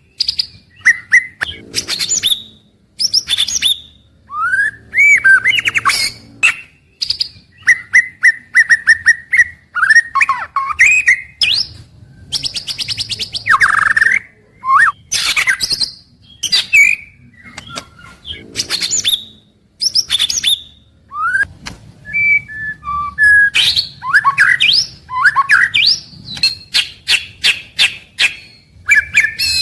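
White-rumped shama singing a varied song of loud gliding whistles, rapid rattling series of notes and harsh chatters, phrase after phrase with short pauses between.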